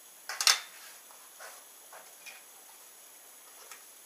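Unboxing handling noise: a brief sharp clatter about half a second in, then a few faint taps and rustles as a small black cube stand and a cube box are handled.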